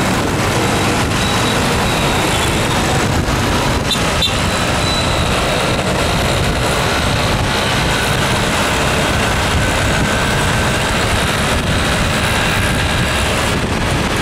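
Loud, steady road noise from riding on a motorbike in traffic: the bike's engine, wind on the microphone and the surrounding cars and auto-rickshaws, blended into one continuous rush.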